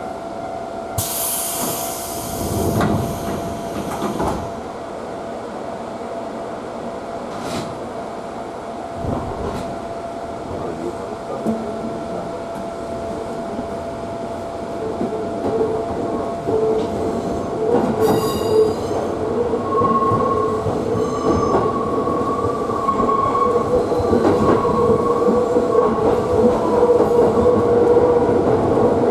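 Electric commuter train on the JR Tsurumi Line heard from inside the carriage. About a second in, a hiss of air lasts a few seconds. From about halfway a wavering squeal of the wheels builds as the running noise grows louder.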